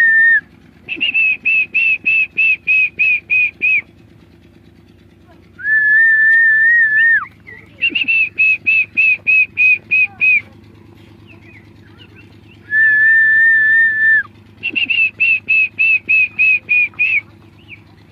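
A loud whistled call, repeated three times: each time one long steady high note, then a quick run of about ten short, higher notes, about three or four a second.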